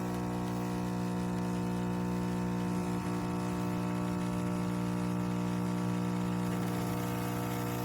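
Philips 3300 Series LatteGo automatic espresso machine running steadily with a buzzing pump hum as it dispenses a latte.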